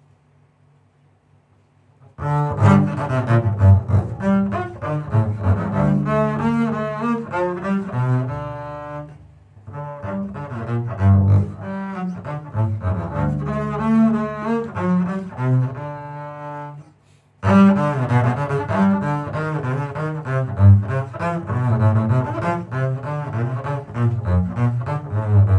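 Double bass played with the bow, a classical solo line in phrases. It comes in about two seconds in, with short breaks around nine and seventeen seconds.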